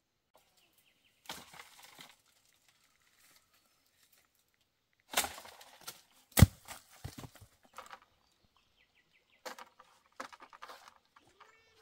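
Intermittent rustling in short bursts, with one sharp, loud knock about six seconds in, followed by a few lighter clicks.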